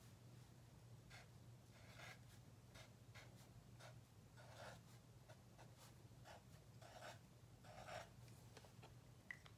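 Pen writing on graph paper on a clipboard: a run of faint, short scratching strokes, over a low steady hum.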